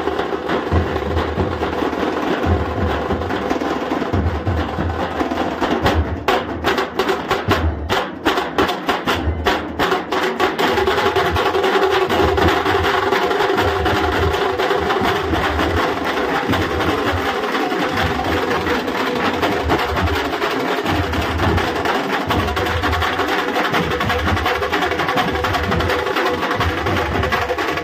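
A Nashik dhol ensemble beating large barrel drums with sticks in a fast, driving rhythm, deep drum strokes under sharp stick hits. About six seconds in the playing thins into separate accented strokes for a few seconds, then the full beat returns.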